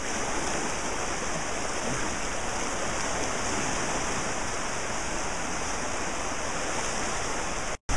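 Floodwater rushing steadily down a normally dry creek that is running as a torrent after heavy rain. It cuts off abruptly near the end.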